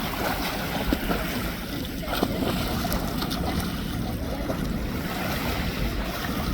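Wind buffeting the microphone over moving sea water, a rough, fluctuating rush heaviest in the low end, with a couple of brief sharp splashes or knocks about one and two seconds in.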